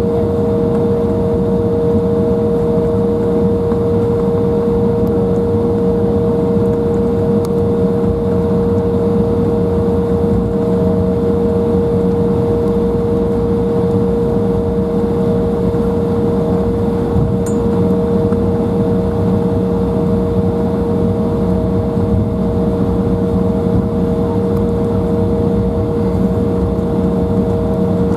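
Embraer 175 cabin noise on the ground: the GE CF34-8E turbofan engines running steadily at low power, a constant whine of two tones over an even rumble.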